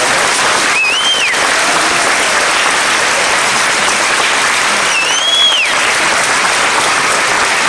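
Audience applauding steadily. Two short whistles that rise and fall in pitch cut through the clapping, about a second in and again around five seconds.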